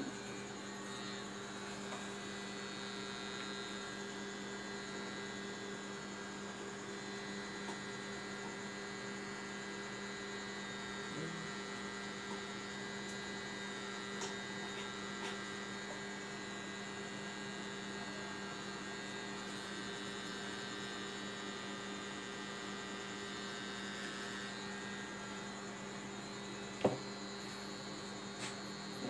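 Cartridge-type tattoo pen machine running with a steady hum while needling a tattoo into skin. A single sharp knock near the end.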